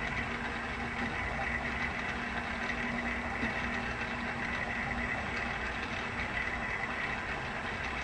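Steady mechanical hum and hiss from a small motorized turntable turning a display stand, with a faint steady tone that fades out about five seconds in.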